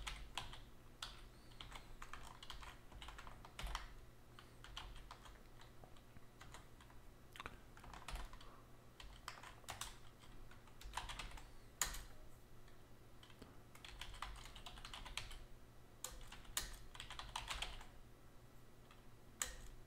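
Typing on a computer keyboard: irregular runs of key clicks broken by short pauses.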